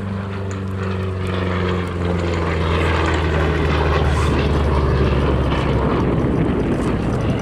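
P-47 Thunderbolt's Pratt & Whitney R-2800 radial engine droning as the warbird flies by on its final pass. It grows louder over the first couple of seconds and its pitch falls slowly as it goes past.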